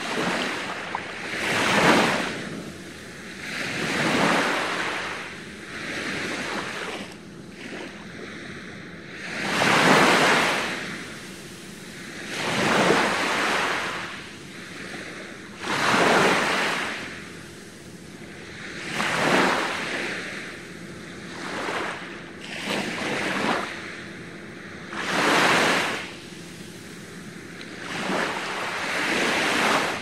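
Small waves breaking and washing up on a sandy beach, each one swelling and fading, one every two to three seconds.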